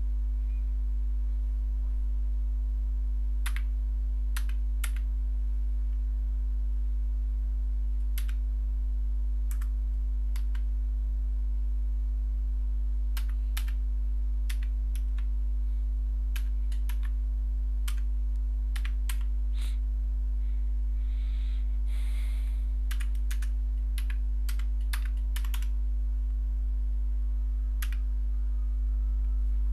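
Computer keyboard typing: scattered, irregular keystroke clicks, singly and in short runs, over a steady low hum.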